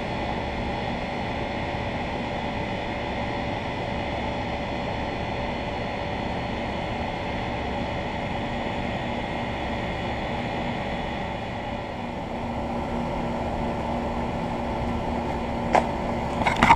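HVAC blower fan running by itself with a steady whoosh of moving air and a faint constant hum, with a few sharp clicks near the end.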